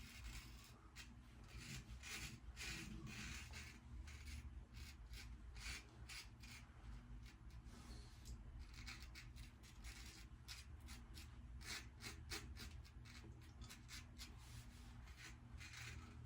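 Safety razor blade scraping through lather and stubble, a faint run of many short strokes.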